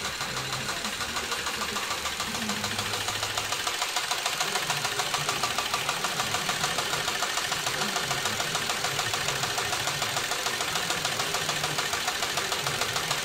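Cowboy 3200 heavy-duty triple-feed cylinder-arm sewing machine running steadily, stitching thick polyester webbing with a rapid, even mechanical clatter.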